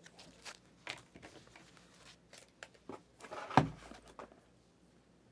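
Trading cards and pack wrappers being handled: scattered light rustles and clicks, with one louder knock about three and a half seconds in.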